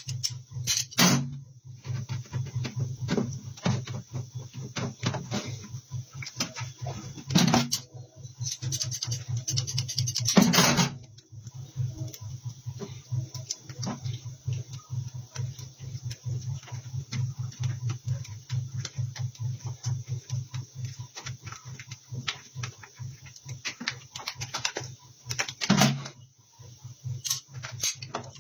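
Large metal shears snipping through rubber during a tyre section repair, with rubber strips being handled. There are many small clicks and scrapes, louder clatters about a second in, around 7 seconds, 10 to 11 seconds and near the end, and a steady low hum underneath.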